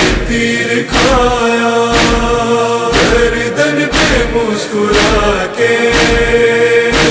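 A noha: male voices chanting an Urdu lament in chorus over a deep thudding beat that falls about once a second.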